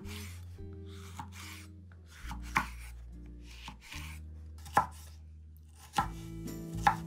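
Chef's knife slicing and dicing red bell pepper on a wooden cutting board: a run of soft cutting strokes, with several sharp knocks of the blade on the board.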